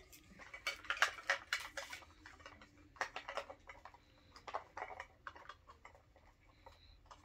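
Small plastic toy packaging being handled and unwrapped by hand: irregular crinkling and clicking in short bunches, busiest in the first two seconds.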